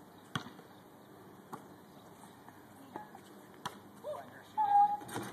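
A basketball bouncing on asphalt, a few single sharp knocks spaced a second or more apart. Near the end a child's voice calls out briefly, the loudest sound.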